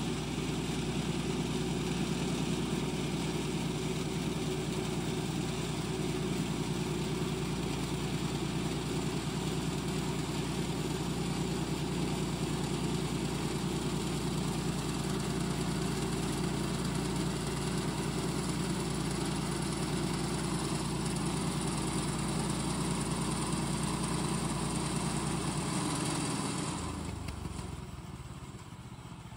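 Woodland Mills portable bandsaw mill running steadily, its gas engine driving the band blade through a log. Near the end the sound falls away to a lower level as the blade clears the end of the log.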